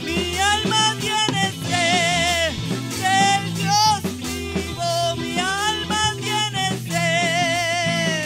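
A woman singing a Spanish-language Pentecostal worship chorus into a microphone, with long wavering held notes, over a band accompaniment of drums, bass and guitar.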